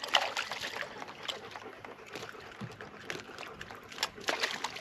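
Scattered water splashes and knocks at the side of a small boat as a hooked spotted seatrout is lifted out of the water, over low lapping water. The loudest splashes come right at the start and just after four seconds in.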